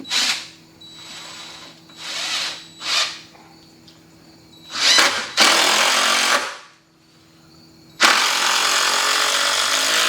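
Impact driver sinking long construction screws into treated lumber in a series of bursts: several short runs, then two longer ones, the last lasting about two and a half seconds.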